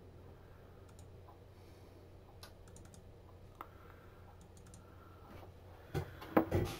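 A few faint, scattered clicks of a computer mouse and keyboard over a low room hum, with a couple of louder knocks near the end.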